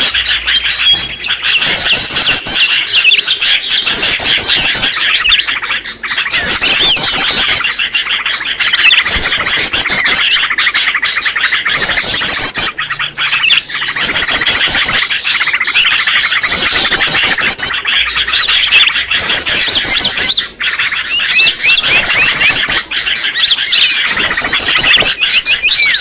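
Greater green leafbirds (cucak ijo) calling noisily without a break: a dense chatter of whistles, harsh notes and rapid trills that repeat every second or two. This is the agitated, busy leafbird call used as a lure to draw wild leafbirds in.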